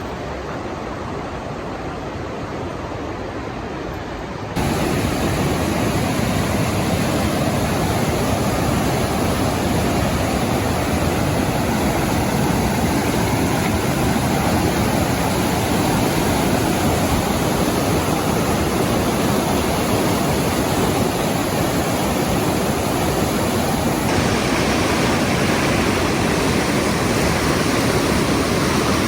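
Ocoee River whitewater rushing at high flow from a dam release: a steady, loud rush of water. It jumps suddenly louder about four and a half seconds in.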